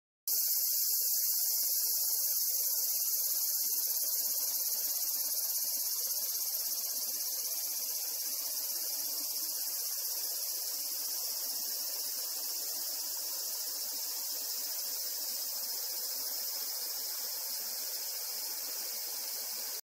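Chorus of insects making a steady, high-pitched drone that starts abruptly and eases off slightly over time.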